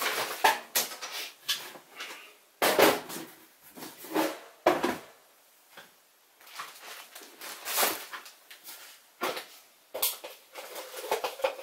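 Someone rummaging through stored outdoor gear in search of paracord: irregular bursts of rustling with a few sharp knocks, separated by short pauses.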